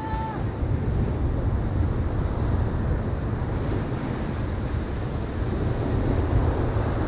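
Ocean surf breaking on a sandy beach, a steady rush of waves, with wind buffeting the microphone in a deep rumble.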